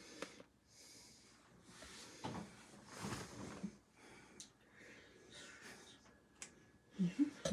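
Quiet handling noises and breaths, with a few soft clicks. A voice murmurs briefly near the end.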